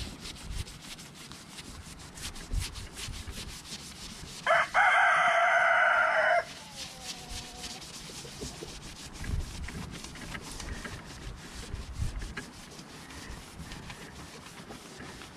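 A cloth rag is rubbed in repeated wiping strokes over a fiberglass boat deck. About four and a half seconds in, a rooster crows once for about two seconds, the loudest sound.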